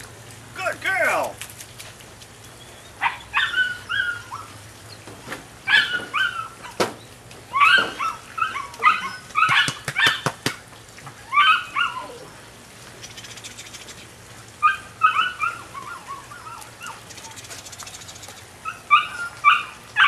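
Belgian Malinois puppy yipping and whining in repeated groups of short, high-pitched cries, with a few sharp clicks in between.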